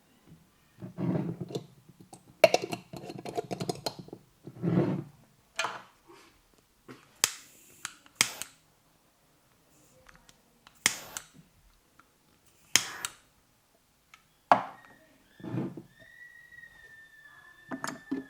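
Indian head massage: the hands slap and rub the head in dull pats, with a quick run of clicks and a series of sharp snaps from tugged tufts of hair, known as hair cracking. About two seconds from the end a steady high whistled note starts and holds.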